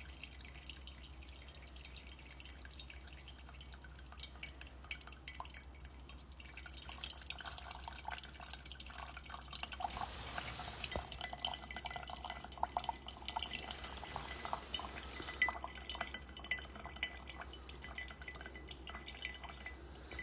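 Coffee dripping from a slow brewer: a faint patter of small drops that grows busier about seven seconds in.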